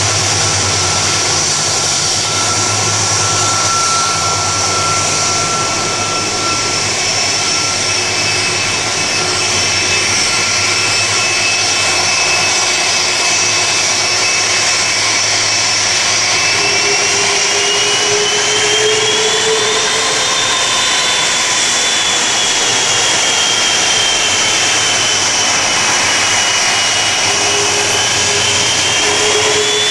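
Boeing 747-400 freighter's four turbofan engines running at taxi power: a loud, steady jet rush with a high whine that rises and falls in pitch during the second half.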